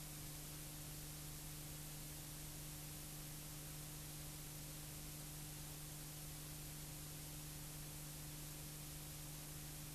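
Steady hiss with a low electrical hum and no other sound: the background noise of a silent home-movie transfer.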